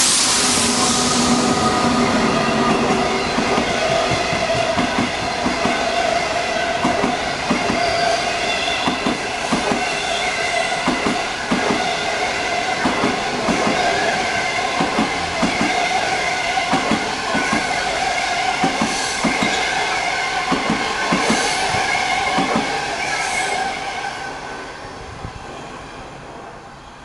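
A Chinese SS8 electric locomotive and its 25T passenger coaches pass close by at speed. The wheels click over the rail joints again and again over steady high-pitched tones, the 'special track sound'. The sound fades away near the end as the last coach goes by.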